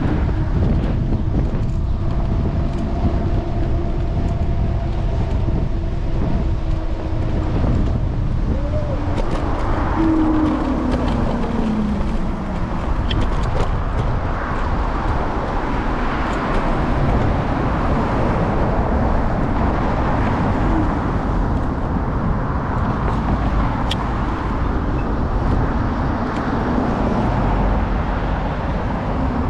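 City street traffic and road rumble heard from an electric scooter in motion, a steady low noise with wind on the handlebar-mounted microphone. A humming tone in the first several seconds slides down in pitch about ten seconds in.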